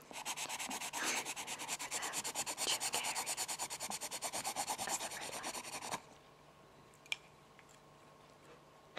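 A pencil scratching quickly back and forth, about eight even strokes a second, stopping after about six seconds. One faint tick follows a second later.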